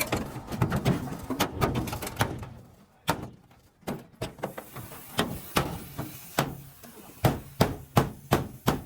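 Hammer strikes, irregular at first, with a short lull about three seconds in, then a quick, even run of blows near the end, about three to four a second.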